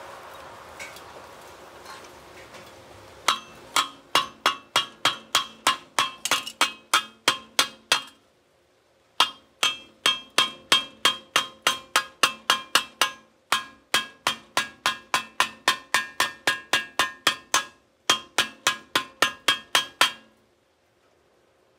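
Chipping hammer knocking slag off a freshly laid stick-weld bead on thin galvanized steel: sharp, ringing metallic taps, about three a second, in four runs with short pauses between them.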